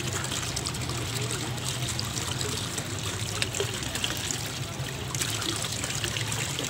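Small fountain jet spurting up in a shallow water channel, splashing and trickling steadily as a child's hand breaks the stream. A steady low hum runs underneath.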